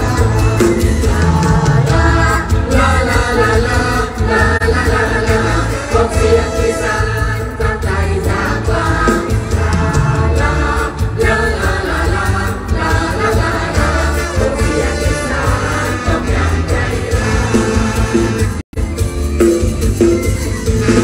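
Live mor lam band played through a very loud concert PA: a heavy pulsing bass beat under singing and melody. The sound cuts out for a split second near the end.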